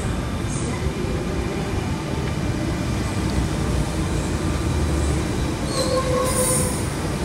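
Double-deck electric passenger train running past along the platform: a steady heavy rumble of wheels and motors. A thin, high wheel squeal comes in briefly about six seconds in.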